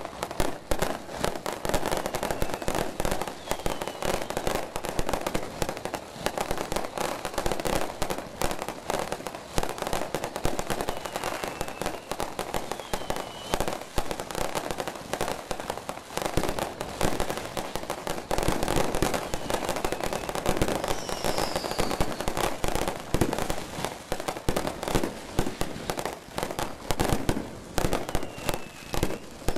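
Fireworks display in a dense, unbroken barrage of many rapid bangs and crackles, like a finale.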